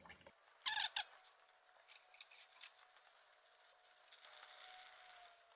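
Faint trickle of old gear oil running in a thin stream from a dozer's final drive drain hole into a tub, with a soft hiss that swells near the end. A brief high chirp with falling pitch about a second in.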